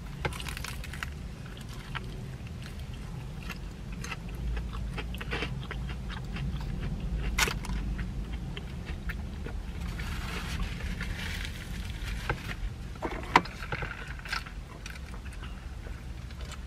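A person biting and chewing crispy fried chicken, with scattered sharp crunches of the crust, over a steady low rumble in the car cabin.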